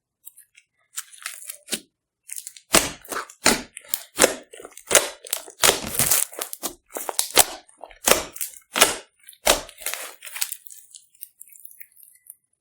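Slime being squished and stretched by hand, giving a run of irregular crackling, popping squelches that die away about ten seconds in.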